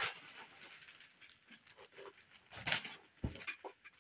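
Handling noises from a plush toy and its plastic packaging: soft rustling, then a few short knocks and scuffs after about two and a half seconds.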